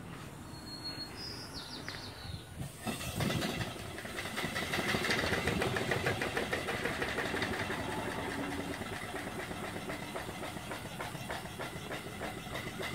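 Antique single-cylinder vertical steam engine starting up on steam about three seconds in, then running sweetly with a fast, even exhaust chuff and hiss.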